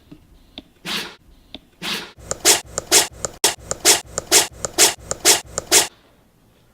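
A dog sneezing: two single sneezes about a second apart, then a fast run of about fifteen short sneezes, roughly four a second, that stops abruptly.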